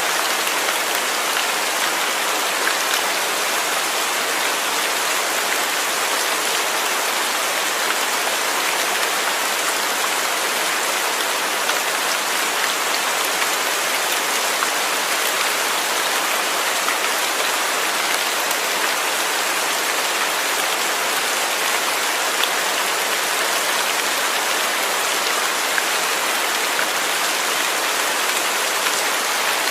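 Steady rain falling on a hard surface, an even hiss with fine drop patter and no thunder.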